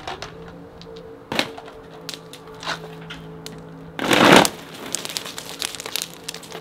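One-inch ice balls, thrown as mock hail, striking a fabric car tent stretched over a car and bouncing off: a couple of single hits, then a loud clattering burst about four seconds in followed by a scatter of small ticks. Background music with long held notes plays underneath.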